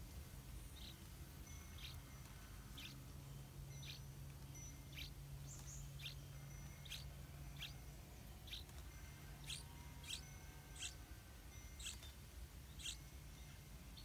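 Yellow-vented bulbul chick begging for food at the nest: short, high, sharp chirps repeated about once a second, growing louder in the second half.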